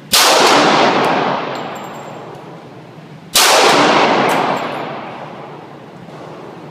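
Two shots from a Smith & Wesson M&P Compact pistol in .40 S&W, about three seconds apart, each with a long echoing tail from the enclosed indoor range. A faint tick follows about a second after each shot.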